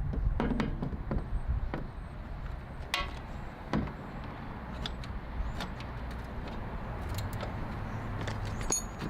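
Scattered metallic clicks and knocks as clamps and a steel-plate fender are handled and clamped into alignment, with the busiest knocking in the first second and another sharp knock about three seconds in.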